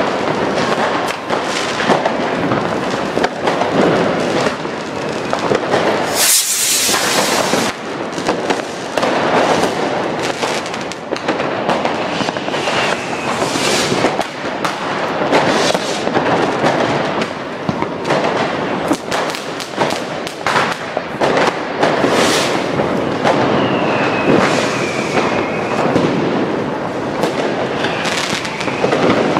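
Dense street fireworks: a near-continuous rattle of firecracker bangs and crackles. A few whistling fireworks glide down in pitch about halfway through and again near the end.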